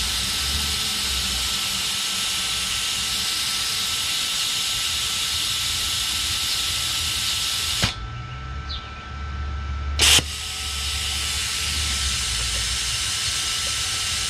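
YESWELDER CUT-65DS plasma cutter torch hissing steadily with compressed air. The hiss cuts off suddenly about eight seconds in and comes back with a short loud burst about two seconds later. The user takes the trouble for too much air blowing out the flame.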